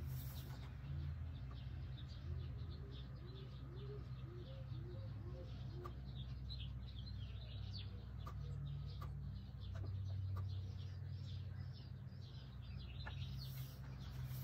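Small birds chirping, with a run of about eight low rising calls from roughly two and a half to six seconds in, over a steady wind rumble on the microphone.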